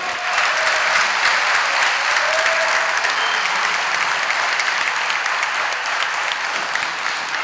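Sustained applause from many people clapping in a legislative chamber, steady in level throughout.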